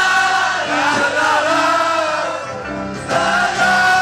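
Live acoustic folk band with several voices singing held notes in harmony. There is a short lull a little past halfway, then the voices come back in.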